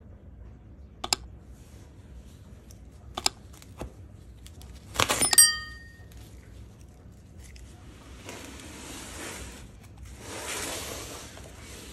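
Handling of a cardboard shipping box: a few sharp taps and clicks, then a louder cluster of clicks with a brief metallic ring about five seconds in. Near the end come two spells of tearing, crinkling noise as the packing tape and cardboard are torn open.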